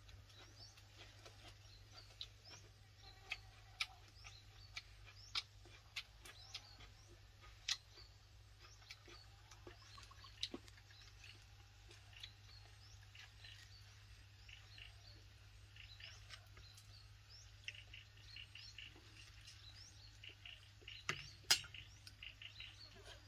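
Faint birds chirping, turning into a quicker run of repeated chirps in the last few seconds. Scattered sharp clicks and smacks of eating come through as well, from tearing and chewing grilled chicken by hand, the loudest a little before the end.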